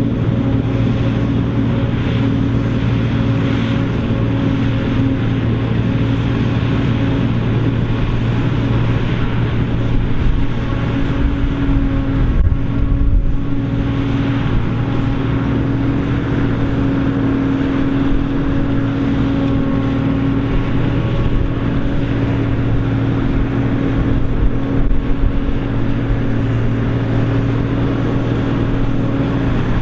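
Krone BigX 700 self-propelled forage harvester running steadily under load in the corn, a deep, even machine hum with brief louder surges near the middle and about two thirds of the way through.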